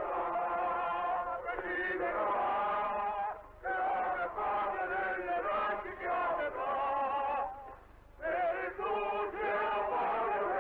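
A chorus of male voices singing together in long held notes. The singing breaks off briefly between phrases about three and a half seconds in and again about eight seconds in.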